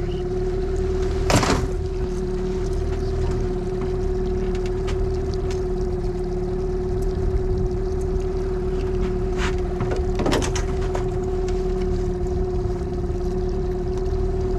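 Boat motor running steadily with an even hum. A sharp knock comes about a second and a half in, with lighter knocks around nine and ten seconds.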